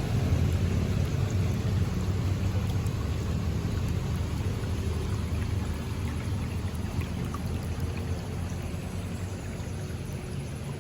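River water flowing in a steady low rush that slowly grows quieter.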